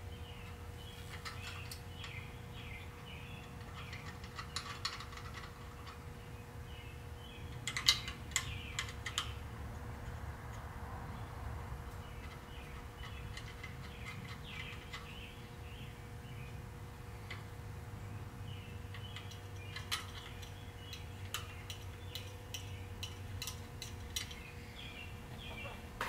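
Scattered small metallic clicks and taps as mounting screws are started by hand to fit a voltage regulator to its bracket, with the sharpest click about eight seconds in. A steady low hum runs underneath.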